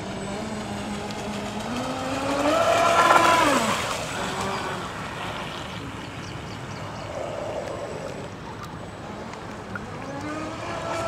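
A boat motor running at speed. Its pitch climbs to its loudest about three seconds in, then drops quickly, and it climbs again near the end.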